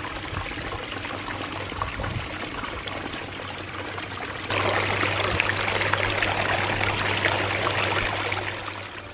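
Water running and splashing down the rock cascade of a pondless waterfall, as a steady rushing; about halfway through it abruptly gets louder.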